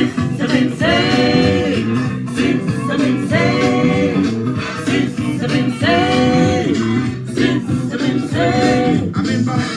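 A song playing: a singing voice holding long notes every two to three seconds over guitar accompaniment.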